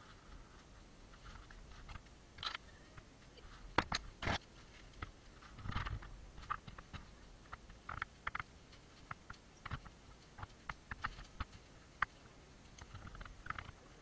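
Footsteps through forest undergrowth: irregular crunches, snaps and clicks of leaf litter and twigs underfoot, with the sharpest pair of clicks about four seconds in.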